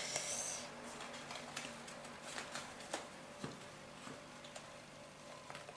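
Faint handling of cardstock: light scattered ticks and rustles as the paper panels of a handmade card are pressed and held together.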